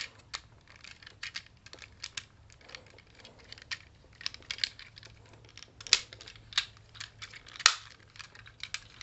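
Irregular small clicks and rattles of a VRV Robo transforming toy's plastic parts being folded and snapped into place by hand as its waist and thigh section is formed. The sharpest snaps come about six and nearly eight seconds in.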